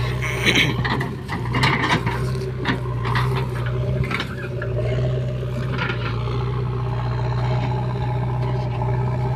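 Diesel engines of a JCB 3DX backhoe loader and a Mahindra tractor running with a steady low drone, with irregular knocks and clatter in the first half as earth is loaded into the tractor's trailer.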